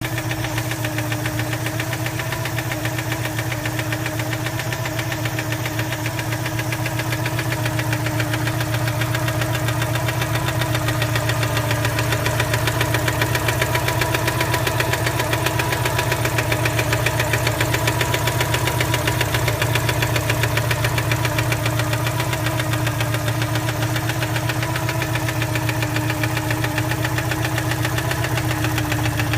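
Citroën 2CV Special's air-cooled 602 cc flat-twin engine running steadily at warm idle with an abnormal knocking noise. The owner says it appears once the engine warms up, is not tappet noise, and comes from inside the engine.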